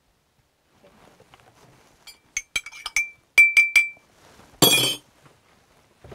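A teaspoon clinking against a mug as a drink is stirred: a run of quick light clinks, then three loud taps about three and a half seconds in, each ringing briefly. About a second later comes one short, louder clatter.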